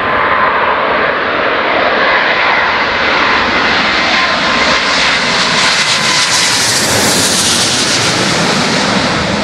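Emirates Boeing 777-300's twin turbofan engines at approach power as the airliner passes low overhead on short final to land: a loud, steady rush of jet noise with a faint whine early on. The hiss grows brightest as it passes directly overhead about seven seconds in.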